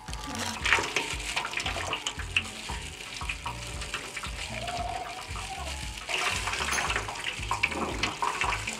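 Water running and splashing, with many small clicks and knocks.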